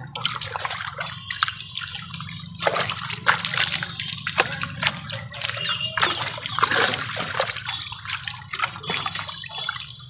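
Live fish splashing and thrashing in shallow water in a gathered net while hands sort through them: irregular splashes and slaps throughout. A steady low hum runs underneath.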